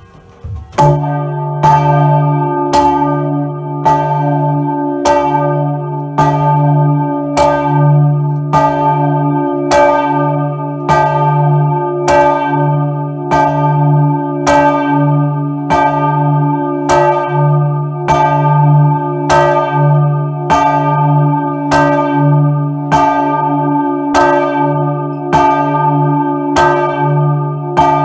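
The large church bell Maria, swung by hand with a rope, rung from right beneath it in the belfry: its clapper strikes about once a second, and each stroke's ringing hum carries into the next. The ringing starts about a second in.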